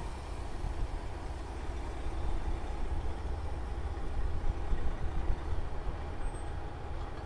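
Heavy truck engine running steadily, a low rumble.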